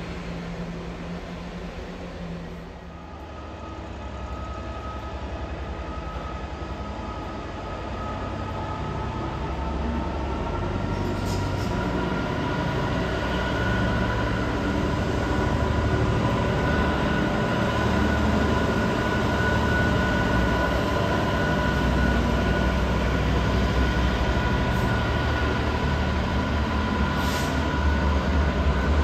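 Freightliner Class 66 diesel locomotive with a container freight train passing, a low rumble of engine and wagons that builds over the first half and then holds steady. A high whine runs over it, climbing slowly in pitch.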